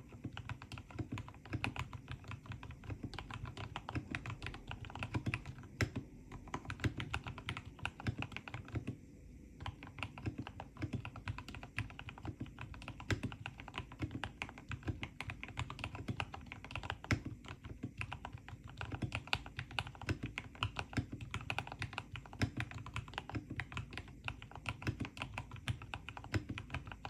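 Continuous fast typing on a mechanical keyboard with Gateron Yellow linear switches: a steady stream of key clacks, with a short pause about nine seconds in.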